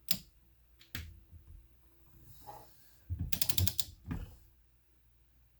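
Sharp metal clicks and light knocks from engine parts and tools being handled during a teardown, with a quick run of about six rapid clicks a little over three seconds in.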